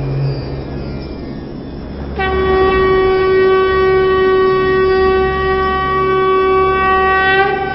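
Soundtrack effects: a rushing whoosh fades away over the first two seconds. Then a single steady horn-like note sounds, held about five seconds at one pitch, and stops shortly before the end.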